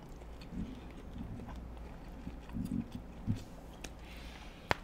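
Close-miked chewing and soft mouth sounds of people eating a cheesy spaghetti squash with chicken, in short irregular bits. A single sharp click comes near the end.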